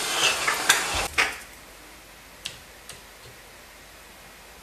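Hot air rework station blowing with a steady hiss, which stops with a click about a second in. A few faint light ticks follow as metal tweezers touch the freshly soldered LED on the matrix board.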